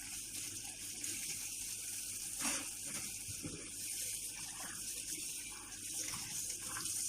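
Kitchen tap running steadily while drinking glasses are rinsed under it, with a light knock about two and a half seconds in.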